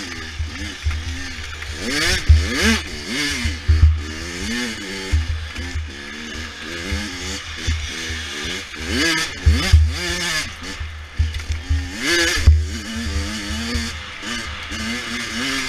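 A 100 cc dirt bike's engine being ridden hard, its pitch climbing and dropping again and again as it revs up and backs off, with low rumbling wind buffeting on the microphone.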